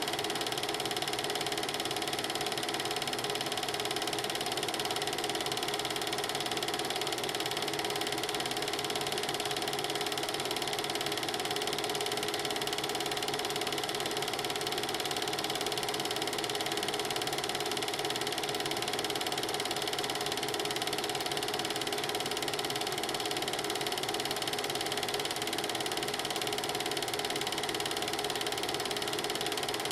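Film projector running: a steady mechanical whirr and rattle that does not change, with no speech or music from the silent film.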